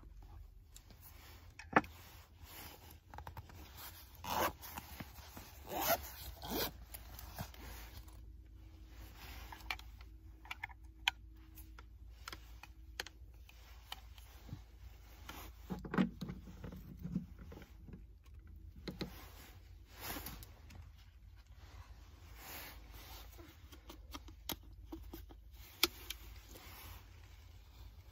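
A zipper on a padded neoprene case pulled open in a few short strokes, followed by scattered clicks, taps and rustles as plastic containers and a power cord are handled.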